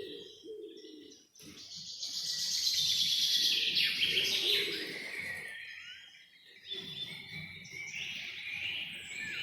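Several wild birds singing and chirping together, a dense chorus of high trills and calls that swells in the middle. A fainter, lower call wavers underneath. The chorus fades almost out twice, briefly.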